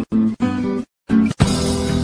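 Ukulele strings plucked as a dove steps on them: a few short separate notes with silent breaks between them. About a second and a half in, continuous music with a hiss takes over.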